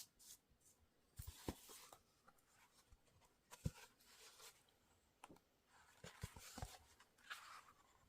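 Hands handling a Blu-ray box set's packaging: a few soft knocks and taps, with brief sliding, rustling noises around them.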